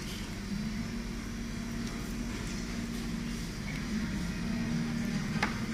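Restaurant room noise: a steady low hum, with a faint sharp click near the end.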